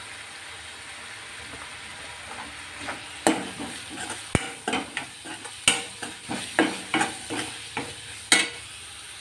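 A metal spatula scrapes and knocks against a kadhai while powdered spices are stirred into onion-tomato masala, over a faint sizzle of frying. The first three seconds hold only the sizzle; then come a dozen or so irregular scrapes and clicks.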